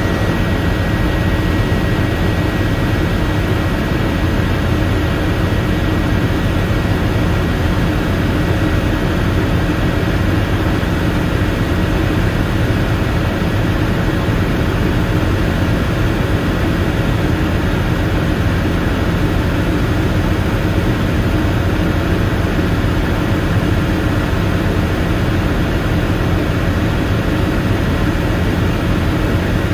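Helicopter in steady cruise flight heard from inside the cockpit: a constant low rumble of engine and rotor with a steady whine above it, unchanging throughout.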